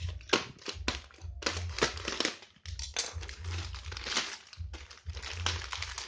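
Thin clear plastic packaging bag crinkling and crackling in irregular bursts as hands open it, with dull handling bumps between.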